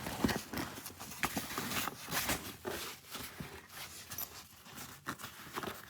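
A fabric tool bag being handled: irregular rustling of the fabric with scattered light knocks and clicks from its parts, thickest in the first couple of seconds.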